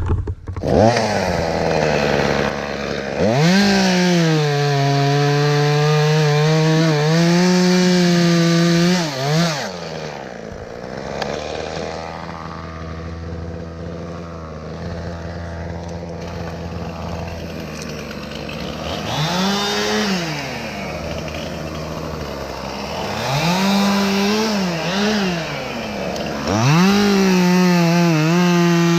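Two-stroke chainsaw revved to full throttle in several bursts, its pitch wavering under load as it cuts wood, and dropping back to idle between bursts.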